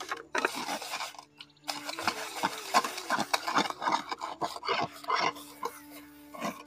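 Hands scouring a stainless steel plate with gritty ash during dish washing: quick, rough scraping strokes, about two or three a second, with a short pause about a second and a half in.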